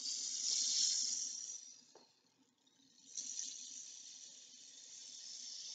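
Rain stick tipped end over end, its fill trickling down through the tube in a soft rain-like hiss. The hiss stops for about a second in the middle, with a light knock as the stick is turned over, then runs again.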